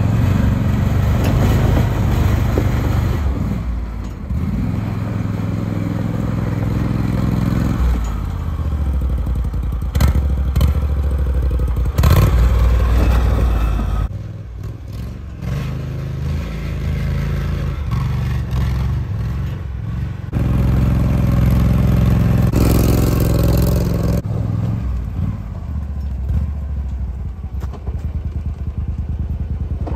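Argocat Avenger 8x8 ATV's engine running and revving under load as it crawls over rough ground, the engine note changing in steps every few seconds. A couple of sharp knocks come through about ten and twelve seconds in.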